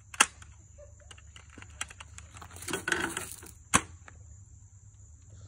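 Spring-powered Nerf foam-dart blaster: a sharp plastic click just after the start, a brief rustle of handling, then a second sharp snap as it fires a dart, a few seconds later.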